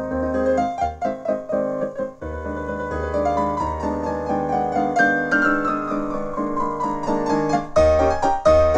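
Piano music: quick notes over a low bass, with a long run of notes falling in pitch through the middle of the passage, then louder repeated chords near the end.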